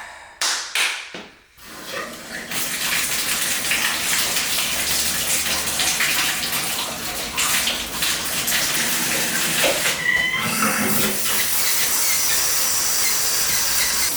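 A couple of clicks, then water starts running in a newly plumbed tiled shower about two seconds in and keeps running with a steady hiss.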